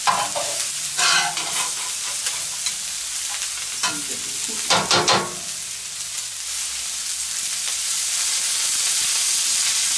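Shredded napa cabbage and carrots sizzling on a hot griddle pan while being stir-fried, with metal tongs and spatula clattering and scraping on the plate a few times. The sizzle grows louder from about two-thirds of the way in, as a liquid is poured onto the hot vegetables.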